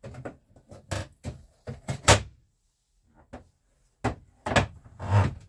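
Knocks and clunks from the plastic lid and parts of a portable washing machine being handled, a handful of them, the loudest about two seconds in, then a short pause before a few more.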